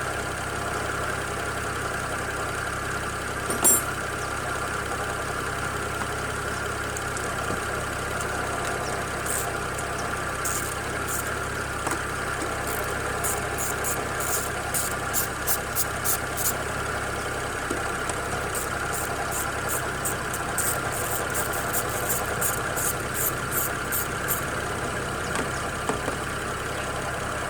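BMW X6's N54 twin-turbo inline-six idling steadily, with a single sharp click a few seconds in. Through the middle and again later come runs of quick, even ratchet-wrench clicks as a 10 mm fastener is undone.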